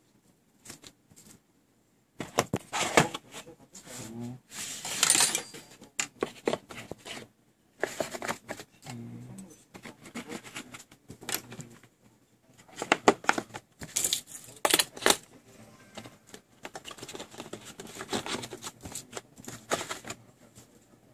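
Dremel 2200 gas torch kit parts clicking and clinking irregularly as they are handled and set into their metal tin case.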